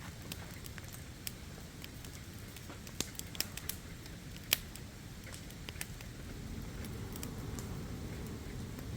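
Wood campfire crackling, with scattered sharp pops, a cluster about three seconds in and the loudest a little later, over a steady low rush.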